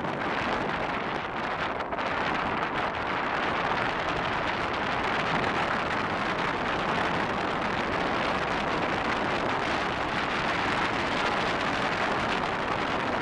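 Steady rushing noise of a car driving along: tyre and wind noise with no clear engine note.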